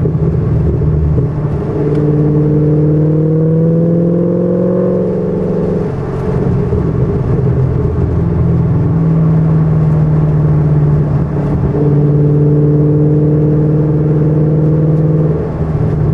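Shelby GT500's supercharged V8 pulling at speed, heard from inside the cabin, its pitch climbing slowly for a few seconds, easing around six seconds in, then holding steady before a short dip near the end.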